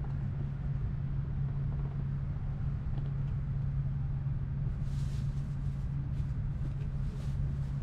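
Steady low cabin hum of an N700S Shinkansen car standing in the station. A few light clicks and rustles come from the seat-back tray table being handled, the clicks about three seconds in and the rustles after that.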